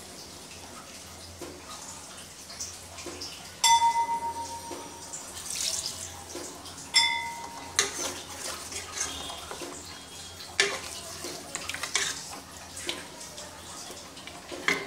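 Wooden spatula stirring a thick curry in a metal pot, knocking and scraping against the pot, with two clear ringing clinks about four and seven seconds in and several sharper knocks after.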